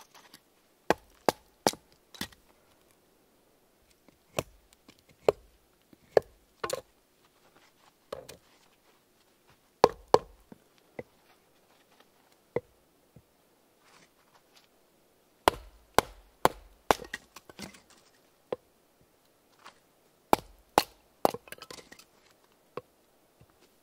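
Varusteleka Skrama bush knife chopping and splitting sticks of kindling against a wooden block. It makes sharp wooden knocks in irregular runs of a few quick strikes, with short pauses between the runs.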